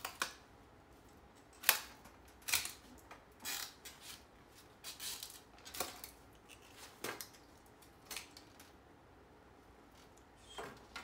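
Green bamboo being split lengthwise with a bamboo-splitting knife: a string of sharp cracks and short crackling runs as the split travels along the grain, about ten in all at uneven intervals, the loudest about two seconds in.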